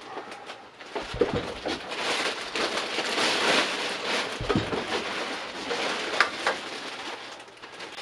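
Cardboard and packing foam rustling and scraping as a boxed lathe is lifted out of its carton, with a few knocks.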